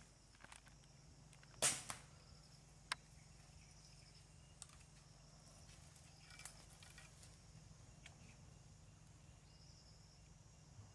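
Faint forest ambience: insects buzzing high and steady over a low hum, with one sharp snap a couple of seconds in and a few lighter clicks after it.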